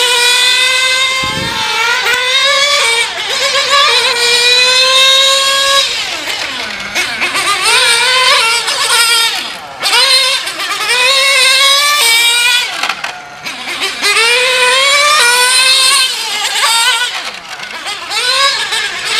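Kyosho Inferno GT3 nitro RC car's small glow-fuel engine running at high revs, a high-pitched whine that climbs and falls over and over as the throttle is opened and let off.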